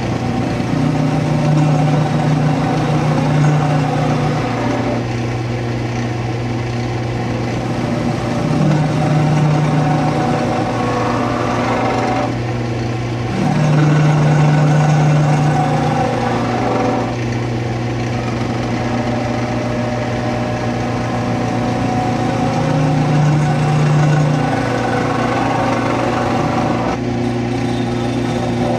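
Wood lathe running with a steady motor hum while a skew chisel cuts the spinning wooden spindle; the cutting noise swells louder four times as the tool bites in.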